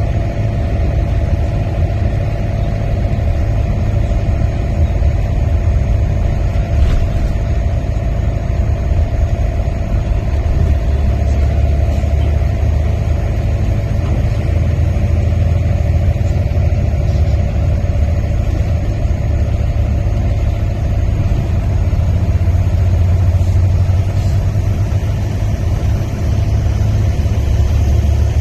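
Steady low rumble of a car moving, with a constant hum above it and no sudden events: engine and road noise heard from inside the vehicle.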